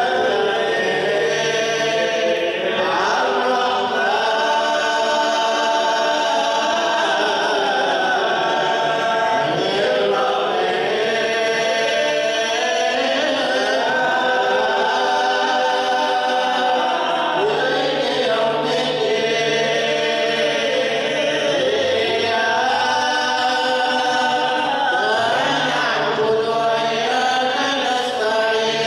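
A group of men chanting a devotional thikr (dhikr) together, unaccompanied, in long sung phrases that rise and fall in pitch.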